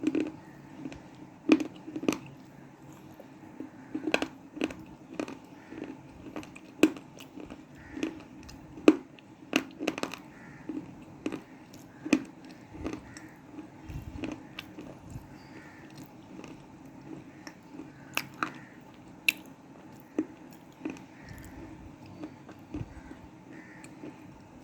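Close-up crunching and chewing of pieces of hardened black cement: irregular sharp crunches between quieter chewing, coming more often in the first half.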